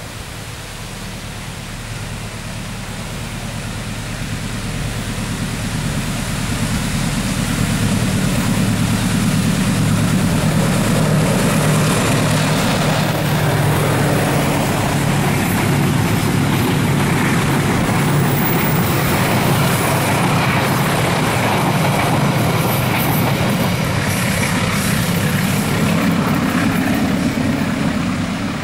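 Train passing on the line, a locomotive engine drone with the rumble of the cars, growing louder over the first eight seconds or so and then holding steady.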